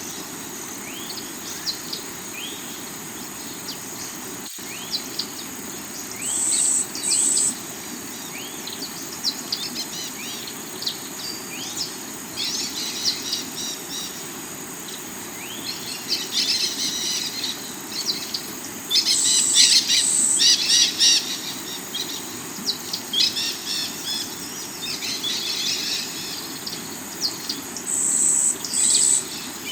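Forest birds chirping and calling over the steady rush of a river running over rocks. Bursts of busier chirping come and go, the loudest about two-thirds of the way through.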